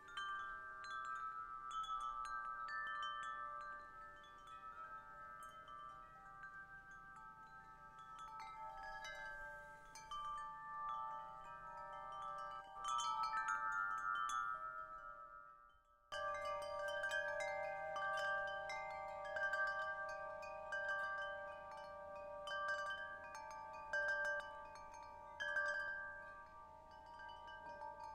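Hanging metal tube wind chimes ringing, the tubes struck at irregular moments by the wooden striker so that their long, clear tones overlap. The ringing cuts out briefly about halfway through and then starts again.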